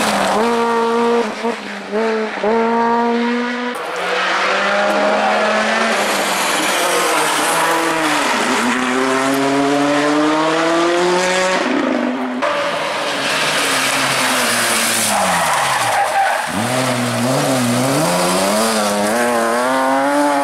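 Rally car engines at full throttle on a tarmac stage. The note climbs through quick upshifts, drops under braking and downshifts, and climbs again. About two-thirds of the way through, a car passes close by and its pitch dips sharply before rising again.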